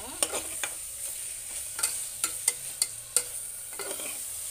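Metal spatula stirring a sizzling paneer, onion and tomato masala in a pressure cooker pot, over a steady frying hiss. The spatula clicks and scrapes sharply against the pot about seven times.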